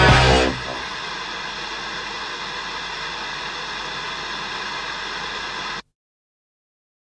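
Loud rock music breaks off about half a second in, leaving a steady static hiss with faint held tones underneath, the end of a song. The hiss cuts off suddenly near the end, leaving silence.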